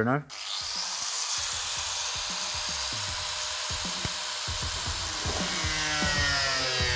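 Angle grinder spinning up with a quick rising whine, then grinding steadily into the painted bonnet of a car with a harsh hiss, cutting a vent opening.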